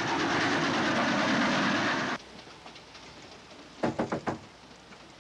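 Steam train running at speed: a loud, rapid clattering rush for about two seconds that cuts off suddenly. A short run of four or five quick knocks follows near four seconds in.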